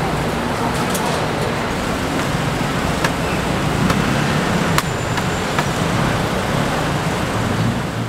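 Steady road traffic close by: car engines and tyre noise with a low rumble, and a few sharp clicks about three and five seconds in.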